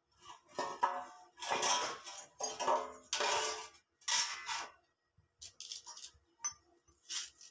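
Steel parts clanking and scraping as a square-tube stove frame and a flat steel bar are handled and set down, a run of ringing metallic knocks over the first five seconds, then lighter clicks.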